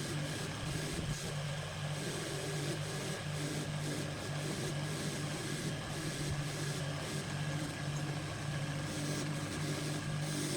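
A motor running steadily, with a low hum that dips briefly now and then over a constant hiss.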